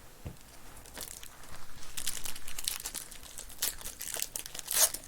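Trading-card box packaging crinkling and being torn open by hand. It is faint for about two seconds, then becomes a run of crackly rustles and rips that is loudest near the end.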